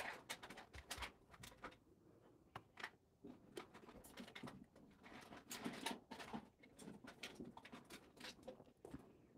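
Faint handling noises on a cluttered desk: scattered clicks, taps and soft rustling as a phone is set down among papers and a lidded drink tumbler is picked up.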